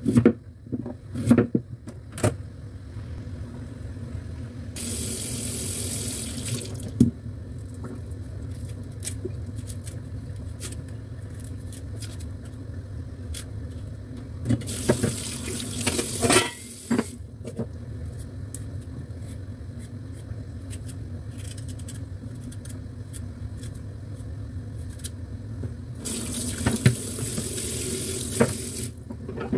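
Kitchen tap running into a sink in three short spells, with a few knife knocks on a wooden chopping board at the start and small scraping clicks in between as ginger is scraped with a knife.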